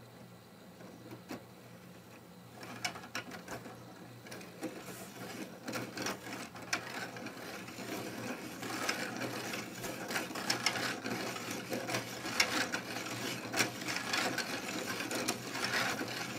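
Hand-cranked 3D-printed plastic gear train running: the plastic gear teeth mesh with a fast, dense clatter that starts about two and a half seconds in and grows louder.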